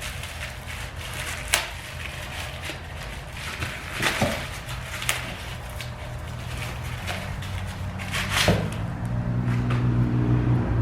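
A few sharp knocks and rustles from unpacking forge parts, over a steady low engine hum. Near the end the engine sound grows louder and fuller.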